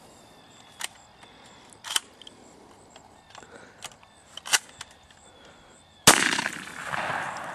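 A single shot from a Remington 870 12-gauge pump shotgun about six seconds in, with a long fading echo after it. Before it there are a few faint, short clicks.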